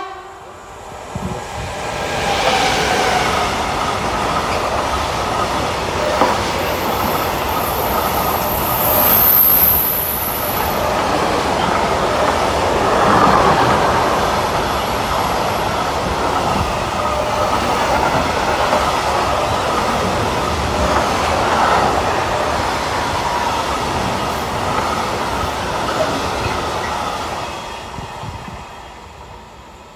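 Class 186 Traxx electric locomotive and a long, heavy container train passing close by: steady rumble and clatter of wagon wheels over the rail joints, with a brief high-pitched squeal of wheels about a third of the way in. The sound builds over the first couple of seconds and fades as the end of the train draws away near the end.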